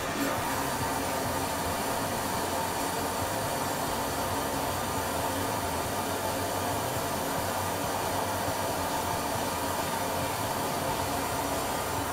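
Water running from a bathtub faucet into the tub as it fills, a steady hiss.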